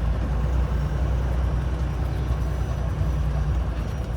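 Semi-truck diesel engine running with a steady low rumble.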